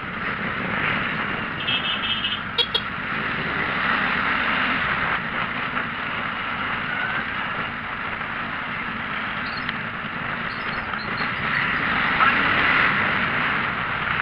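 Steady rushing of wind and road noise from riding in a moving vehicle, with a low engine and tyre rumble underneath. A short high beep sounds about two seconds in, followed by a sharp click.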